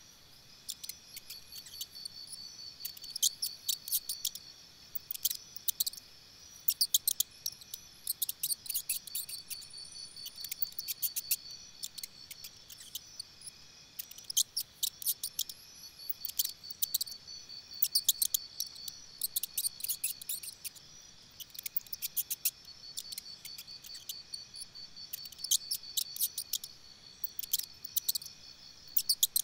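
Insects chirping: repeated clusters of rapid, high, clicky chirps over a steady high trill.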